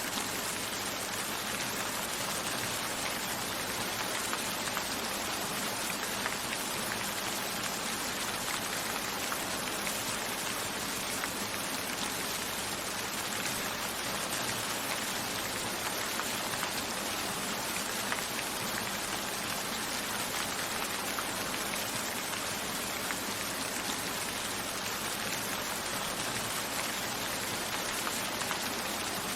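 Steady rain, a constant hiss with many fine drop ticks, the rain pattering on a window.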